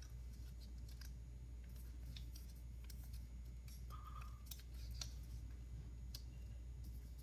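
Faint scattered clicks and ticks over a steady low hum, with a brief beep-like tone about four seconds in.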